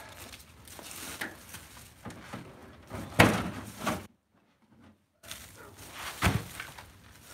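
Heavy ash firewood rounds being handled at the pickup bed and woodpile: two loud wooden thunks about three seconds apart, the first the louder, with scuffing and rustling between them. The sound cuts out for about a second after the first thunk.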